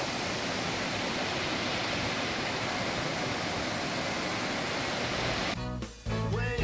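Waterfall rushing steadily over a weir and rocks. It cuts off about five and a half seconds in, and music starts near the end.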